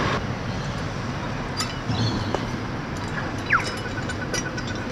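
A few light, sharp metal clinks as a spanner and steel pit-lid lifting gear are handled, the loudest about three and a half seconds in, over a steady background of street traffic noise.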